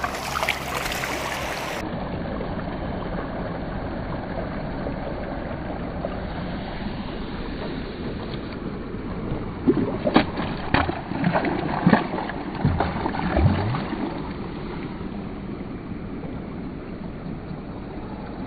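Steady water and wind noise from a kayak out on a river, with a cluster of knocks and clatter against the boat about ten to fourteen seconds in.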